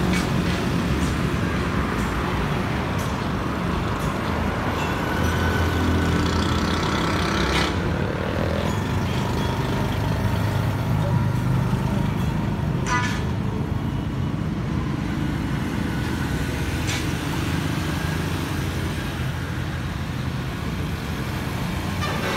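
Steady motor-vehicle engine noise, like nearby road traffic, with a few sharp clicks.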